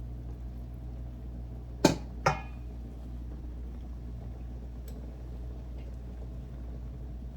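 Two sharp clinks of cooking pot and utensil, about two seconds in and less than half a second apart, the second ringing briefly, over a steady low hum.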